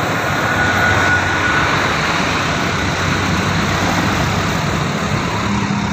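Road traffic: a heavy vehicle's engine running, with a steady, loud rush of engine and road noise. No musical horn is sounded.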